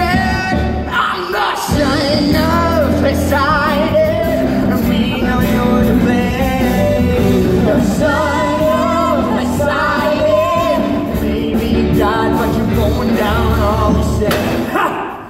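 Amplified singing from a live stage musical over band accompaniment, with wavering held sung notes; the music drops out briefly just before the end.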